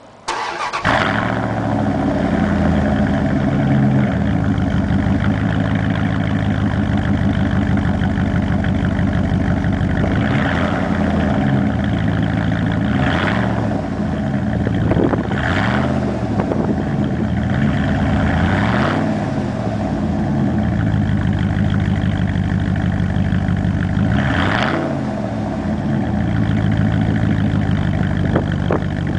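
1998 Dodge Ram 5.9's engine through straight pipes with a Y-pipe, starting up just as the sound begins and then idling loud, revved up and back down about five times.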